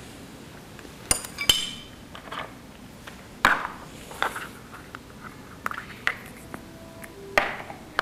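Small ceramic or glass items being handled, clinking and knocking several separate times. One clink about a second and a half in rings briefly.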